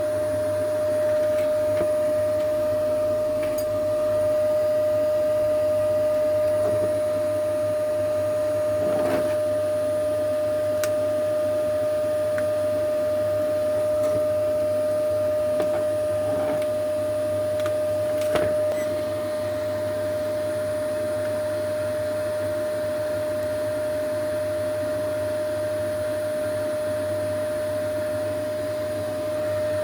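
A steady whirring motor noise, like a fan or blower, with a constant whine and a low hum. A few faint clicks come over it, and it gets a little quieter about two-thirds of the way through.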